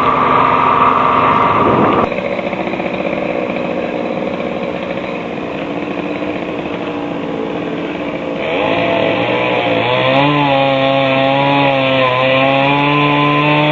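Two-stroke chainsaw running: its engine note drops about two seconds in, then rises again from about eight seconds in, with a wavering pitch.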